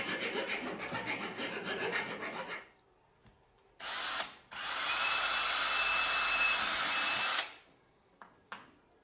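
A steel hand file rasping in quick strokes across the edge of a thin piece of solid wood clamped in a vise, stopping about two and a half seconds in. About a second later a small power drill with a thin bit drills into a small wooden piece: a short burst, then a steady run of about three seconds with a high whine, cutting off near the end.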